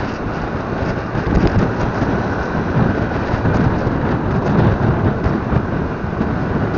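Wind buffeting the microphone of a moving scooter: a loud, steady low rumble, with the scooter's engine and passing traffic under it.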